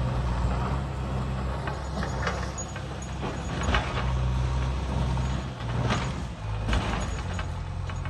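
Diesel engine of a backhoe loader running under load as it works, with a few sharp knocks, and its engine note changing about six seconds in.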